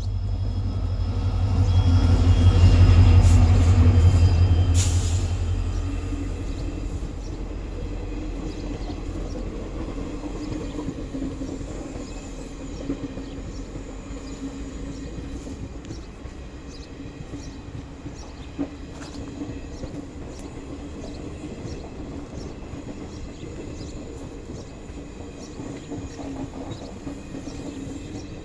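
Maharaja's Express passing: the WDP4D diesel locomotive's engine comes through loudest a few seconds in, then the coaches roll past in a steady rumble with regular wheel clicks over the rail joints.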